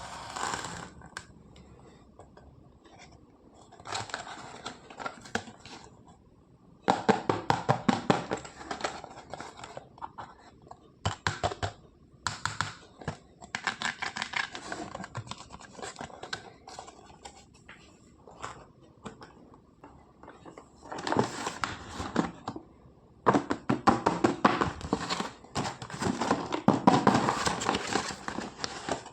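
Toy packaging being handled and opened by hand: irregular bursts of crinkling, tearing, scratching and scraping, with small clicks and knocks of plastic parts and short pauses between bursts.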